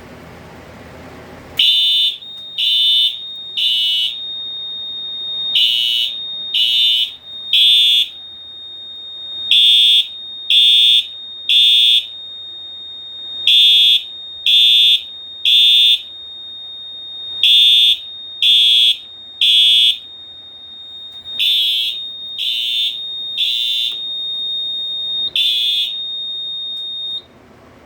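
FCI HES-STW fire alarm horn sounding in code 3: short horn blasts in groups of three, about a second apart, with a pause of about two seconds between groups, repeating until a single last blast near the end. This is the system in alarm after a manual pull station was pulled. A thin, steady, high whine runs under the blasts and stops just before the end.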